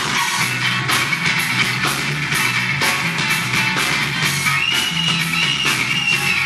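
Live band playing: a drum kit keeps a steady beat under bass and guitar.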